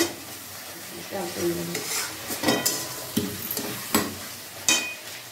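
Steel spatula scraping and knocking against a metal kadai while stirring thick curry masala that is frying and sizzling in oil. The strokes come irregularly, the sharpest about two, two and a half, four and nearly five seconds in, one leaving a short metallic ring.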